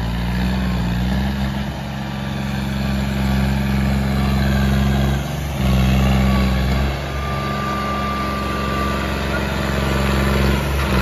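Tractor engine running hard under load as the tractor drives on its rear wheels in a wheelie with its front end lifted. The note is steady, briefly drops away about halfway through, then comes back louder.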